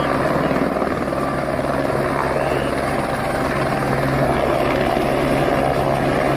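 Single-engine light helicopter hovering low, its rotor and turbine running steadily with a steady low hum under the rotor noise.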